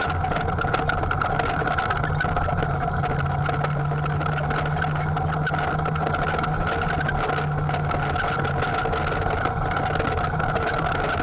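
Textron Havoc X side-by-side's engine running at a steady, low trail speed, with scattered clicks and rattles as it rolls over rough, rocky ground.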